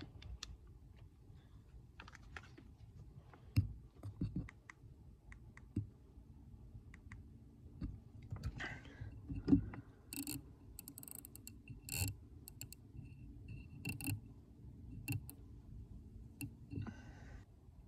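Scattered light clicks and small knocks of an air rifle and its scope being handled while aiming, with a few sharper taps among them.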